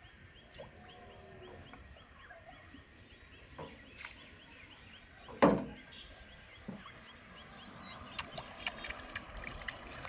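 Outdoor river ambience with birds calling and a steady repeating high chirp. One loud knock comes about halfway through, then a run of small sharp splashes near the end as a fish takes the fishing float.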